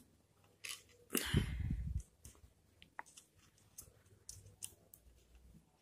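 Multimeter probe tips scraping and clicking on the metal terminals of a refrigerator thermostat, with a rustling scrape about a second in and scattered small clicks after it. No continuity beep sounds: the switched-off thermostat's contacts are open.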